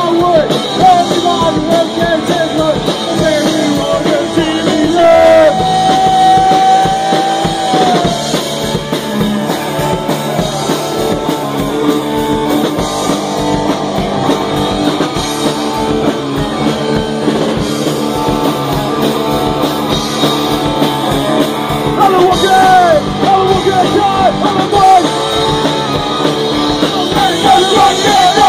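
Punk rock band playing at full volume in a small rehearsal room: distorted electric guitar, drum kit with crashing cymbals, and a shouted lead vocal. A long held high note comes about five seconds in, and shouted phrases return near the end.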